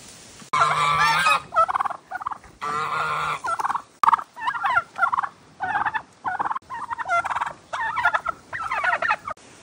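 Turkeys gobbling over and over: short warbling calls in quick succession, one after another, starting suddenly about half a second in and cutting off near the end.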